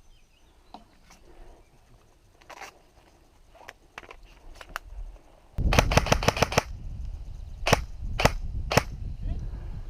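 Airsoft guns firing. A few faint shots come first. About halfway through there is a loud rapid burst of some seven shots in under a second, then three single shots about half a second apart, over a low rumble on the microphone.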